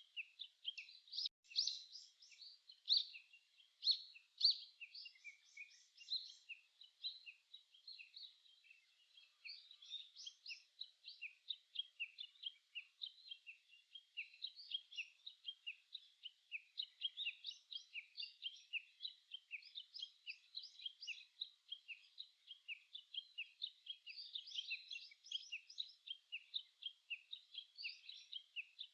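Small songbirds chirping and singing together in a dense, continuous chorus of short high chirps, several overlapping every second.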